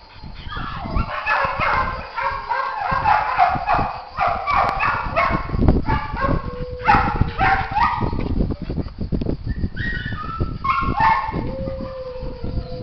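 Several dogs barking in quick, overlapping high-pitched calls. The calls are dense for the first eight seconds or so, then come in scattered bursts, over low irregular thumps.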